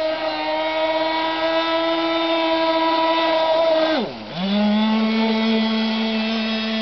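Two-stroke engine of an FSR-V racing RC boat running steadily at a high pitch. About four seconds in, the pitch drops sharply and briefly sags, then the engine settles into a steady, lower note.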